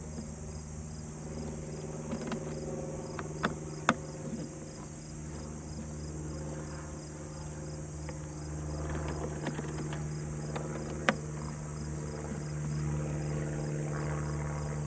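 A wrench working the captive cover screws on a DeWalt 735 thickness planer, with a few sharp metallic clicks and light scraping. Behind it is a steady high-pitched chirring and a low hum.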